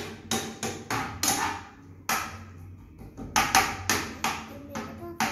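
Metal spoon scraping and knocking against a frying pan while Maggi noodles are stirred, in quick irregular strokes about three a second.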